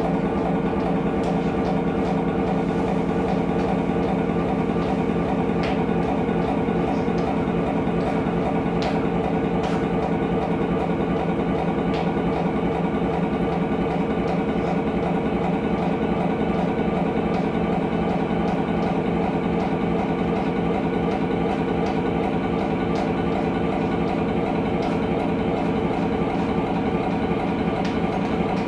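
A loud, steady mechanical drone like an engine running, made of many held tones over a constant rumble and keeping the same level throughout.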